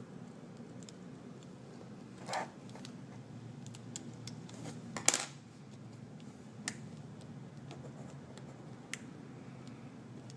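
Scattered light clicks and taps of small tools and iPhone 5 parts handled on a work surface during disassembly. The loudest is a sharp clink about five seconds in, with single ticks later, over a low steady hum.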